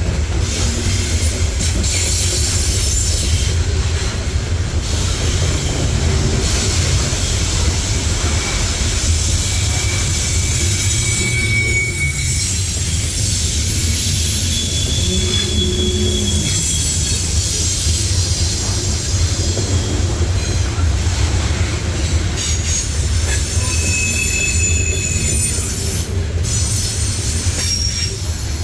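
Norfolk Southern train rolling past with a steady low rumble from its cars. Brief high-pitched wheel squeals come and go throughout.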